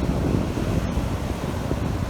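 Strong wind buffeting the microphone: a steady, heavy low rumble that flutters unevenly.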